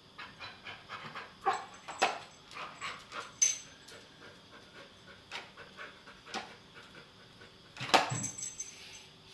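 Dog panting in quick short breaths, with several louder knocks and scuffles as it tussles.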